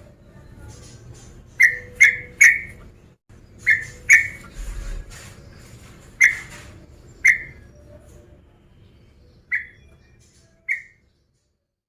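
Yellow-vented bulbul (trucukan) calling: short, sharp whistled notes in clusters of two or three, growing sparser and fainter toward the end.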